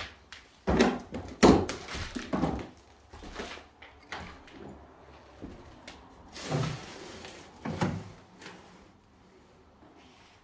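A run of sharp knocks and thumps in the first three seconds, then a short scraping rustle and another thump about seven to eight seconds in, in a small room.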